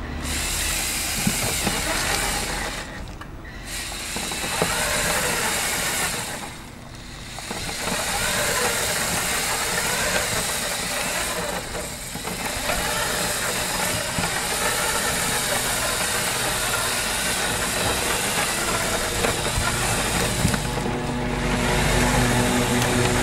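Electric motors and plastic gear train of a Lego Technic trial truck running as it drives, stopping briefly four times.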